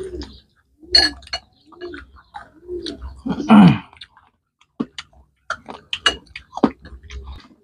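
People eating a sour, spicy fruit salad: spoons click against a bowl, with chewing and mouth sounds, short low hummed 'mm' sounds about once a second, and a longer falling vocal exclamation about three and a half seconds in, a reaction to the sour taste.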